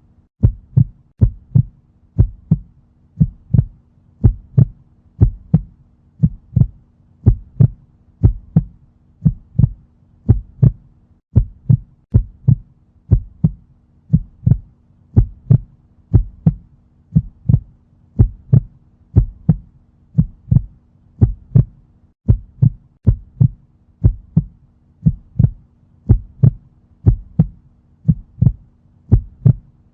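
Heartbeat sound effect: a steady, even rhythm of paired low thumps (lub-dub), with a faint steady low hum underneath.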